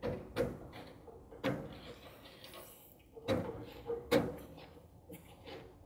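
Door glass and its metal channel knocking against the inside of a 1949 Chevrolet pickup's steel door as the glass is turned and worked out by hand: a handful of short, dull knocks, the loudest two a little past three and four seconds in.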